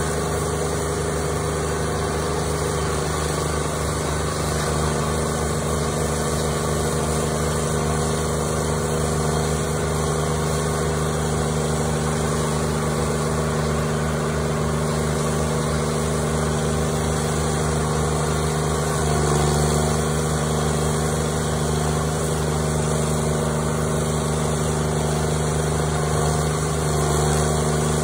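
Intimidator stump grinder's engine running steadily. Its pitch sags and the sound swells briefly twice, about two-thirds of the way in and near the end, as the cutter wheel is worked into the stump.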